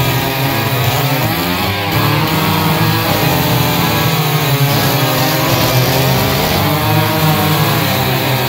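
Two-stroke gas chainsaws running at high speed and cutting logs, the engine pitch dipping and rising as the chain loads up in the wood.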